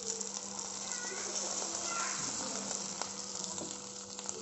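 Masala-coated sardines shallow-frying in hot coconut oil in an aluminium kadai: a steady sizzle with a few small crackles as curry leaves drop into the oil.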